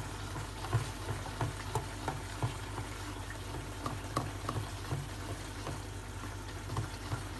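A whisk beating gram flour into diluted yogurt in a bowl to make a lump-free kadhi batter. It goes as quick, even tapping strokes, about three a second.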